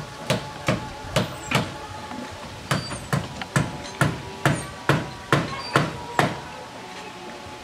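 Hammer blows on a wooden plank, a steady series of sharp strikes at about two to three a second: four, a short pause, then about nine more.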